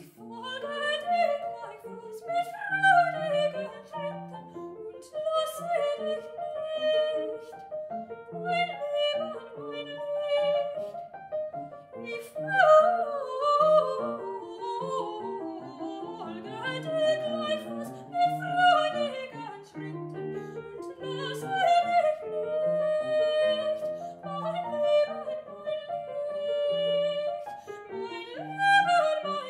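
A single high voice sings a melody with piano accompaniment, holding some notes for a second or two.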